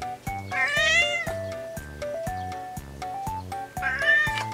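A cat meowing twice, once about half a second in and again near the end, over background music with short even notes and a steady beat.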